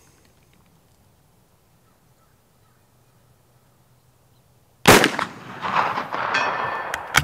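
A single shot from a Mauser Model 71/84 rifle, chambered in 11mm Mauser, about five seconds in. Its report rolls on and dies away over the next two seconds.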